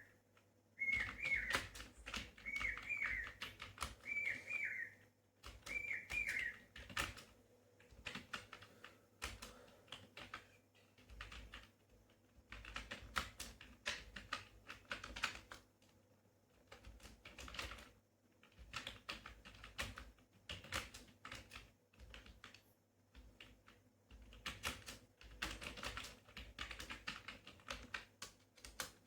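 Fast typing on a computer keyboard: rapid key clicks in bursts of a second or two with brief pauses. Over the first several seconds a short, high, falling whistled call repeats about eight times.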